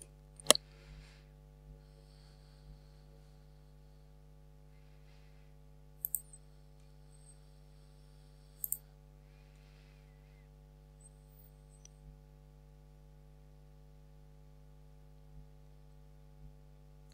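Faint steady electrical hum with a few sharp computer mouse clicks: one about half a second in, a quick pair around six seconds, and one near nine seconds.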